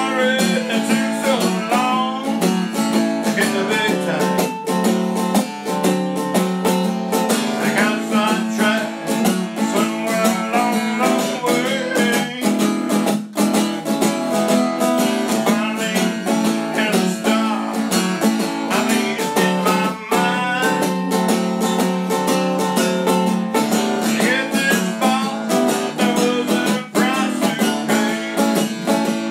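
Epiphone acoustic guitar strummed steadily through an instrumental stretch of a song, chords ringing under a regular strumming pattern.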